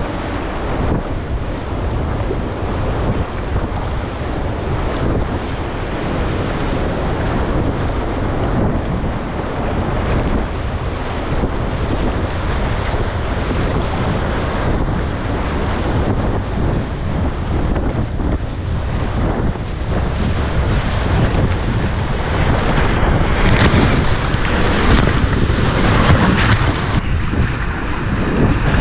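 Rushing whitewater around a kayak, with waves splashing against the bow and wind buffeting the microphone. The splashing grows louder and harsher about twenty seconds in, as the boat drops into the rapids.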